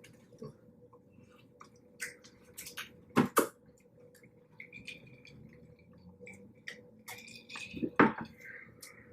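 Close-up eating sounds from a seafood boil: wet chewing and mouth smacks with scattered small clicks, and a few sharp louder knocks about three seconds in and again near the end.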